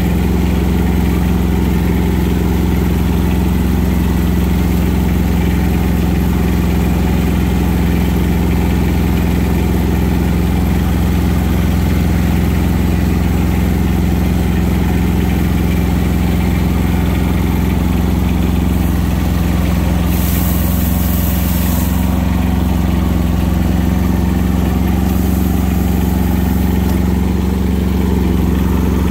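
Kubota compact tractor's diesel engine running steadily, heard close up from the operator's seat. Its pitch shifts slightly about two-thirds of the way through, and a couple of brief hisses follow.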